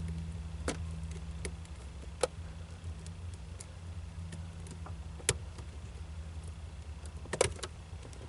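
A small flathead screwdriver prying at the plastic shifter trim in a 1996 Jeep Cherokee, giving scattered sharp clicks and taps: the loudest about two and five seconds in, with a couple close together near the end. A steady low hum runs underneath.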